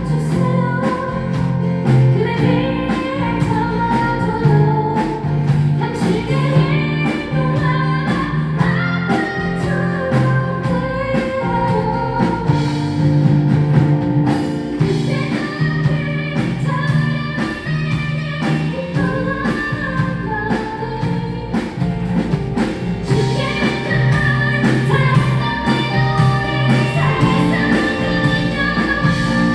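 Live band playing a pop-rock song with electric guitar and drums, with a voice singing over it.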